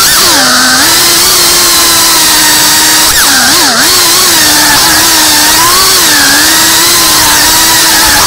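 FPV drone's motors and propellers whining, the pitch mostly holding steady but dipping and rising with the throttle, with a quick run of dips about three seconds in.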